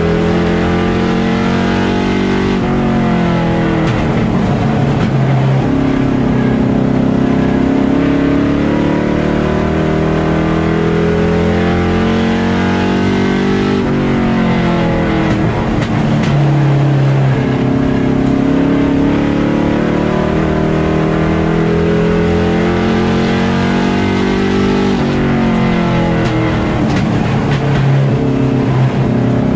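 Limited Late Model race car's engine at racing speed, heard from on board the car. The revs drop sharply three times, about eleven seconds apart, and climb steadily again in between.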